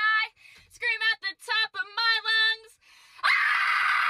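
A high-pitched voice singing a few short notes, then from about three seconds in a loud, harsh, sustained scream.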